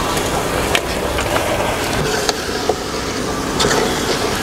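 Raw mutton pieces dropped into a pot of hot tomato masala and stirred in with a steel ladle: several sharp clinks of the ladle against the aluminium pot over a steady hiss of cooking.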